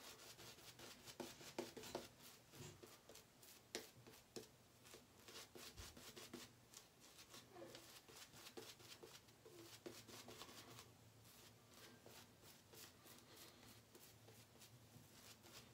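Shaving brush worked over a lathered face: quick, soft scratchy swishes of the bristles through the lather, faint throughout and thinning a little after about eleven seconds.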